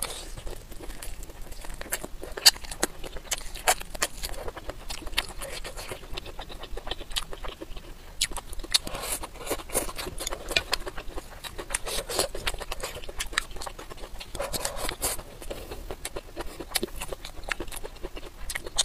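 Close-miked chewing of stir-fried wild celery and dried tofu: a dense run of wet mouth clicks, smacks and small crunches, with a few louder smacks among them.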